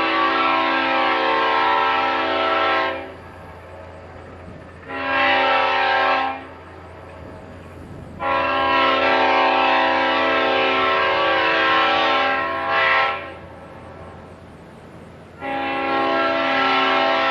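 1953 Leslie S5T five-chime locomotive air horn sounding its chord in a series of blasts: one ending about three seconds in, a short blast, a long blast of about four seconds with a quick short toot right after it, and another blast starting near the end.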